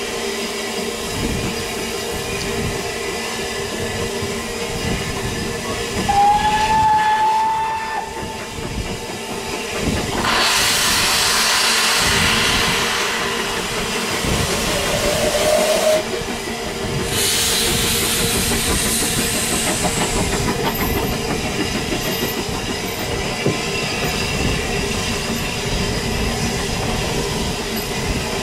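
Narrow-gauge steam locomotive hauling a train, heard from a coach behind it: a steady rumble and clatter of the wheels on the rails. A brief high tone comes about six seconds in, and there are two long, loud hisses of steam at about ten and seventeen seconds in.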